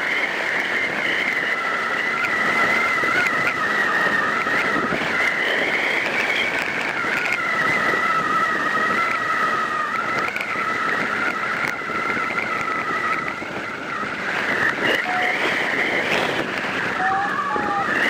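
Strong wind rushing over the microphone, with a steady whistle of two notes that waver slightly in pitch.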